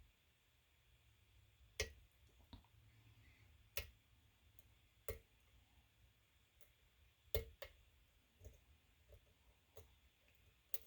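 Small sharp metallic clicks, about ten at irregular intervals, as a lock pick works the pins of a pin-tumbler lock under tension, setting pins on the way to a false set.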